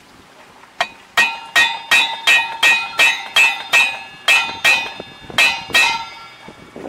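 A hammer strikes a steel socket held against the end of a boat lift gearbox's spool shaft, driving the shaft through its bearing. It gives about fourteen ringing metal-on-metal taps at roughly three a second, with a brief pause midway.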